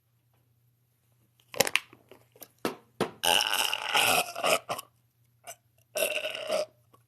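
A woman trying to burp on purpose: a few short gulps and clicks, then a belch lasting about a second and a half from about three seconds in, and a shorter one near the end. They are small, forced burps; the big one she was trying for does not come.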